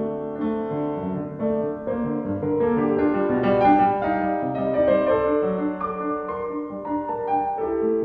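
Background piano music: slow held notes and chords, changing step by step.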